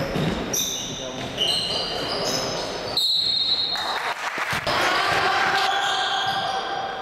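Basketball game on a gym court: a ball bouncing, sneakers squeaking in many short high chirps on the hardwood floor, and players' voices calling out, all echoing in the hall.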